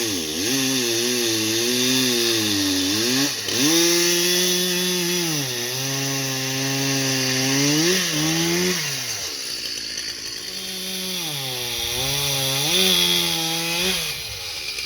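Stihl 361 two-stroke chainsaw cutting through a log, its engine pitch dipping under load and rising again several times over a steady hiss of cutting.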